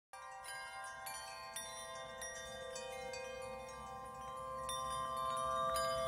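Background music made of a sustained, steady chord with twinkling wind-chime notes over it, starting just after a moment of silence.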